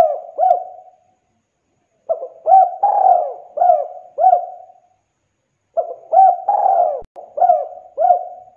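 Spotted dove cooing its song. The tail of one phrase is heard in the first second, then two full phrases follow, each a run of about five coos with a longer, rolling middle coo.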